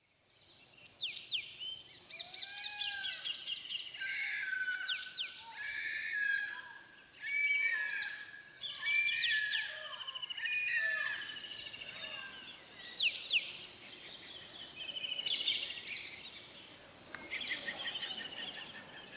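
Several birds calling and singing together: overlapping chirps, quick sweeping notes and short repeated trills, starting about a second in. The calls are busiest in the first half and sparser and softer later, over a faint outdoor hiss.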